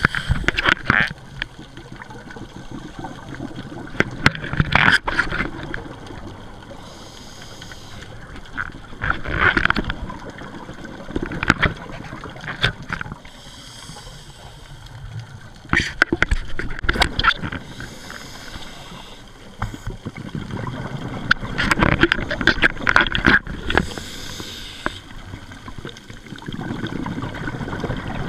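Scuba diver breathing through a regulator underwater: a hiss on each inhale, then a gurgling, crackling rush of exhaled bubbles, repeating every four to five seconds.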